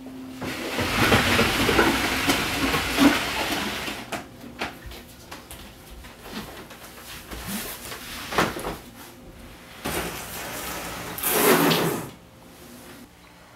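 A wooden chest of drawers dragged across the floor, scraping loudly for the first few seconds. Scattered knocks and clunks follow, then another loud scrape near the end.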